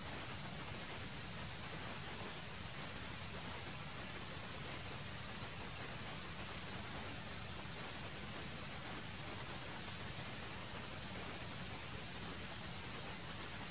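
Steady, high-pitched drone of insects over a soft background hiss. A brief, higher, rapidly pulsing chirp comes about ten seconds in.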